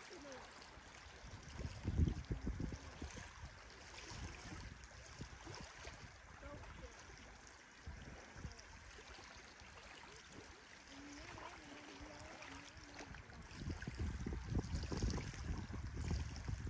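Water trickling and lapping steadily. Bursts of low rumble on the microphone come about two seconds in and again near the end.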